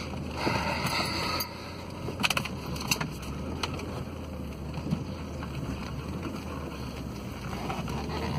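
Cabin sound of a 2000 Jeep Grand Cherokee's 4.7-litre V8 driving over a bumpy grass track: a steady low engine hum under a rumble of tyre noise, with a louder rush of noise near the start and a few sharp clicks or rattles a couple of seconds in.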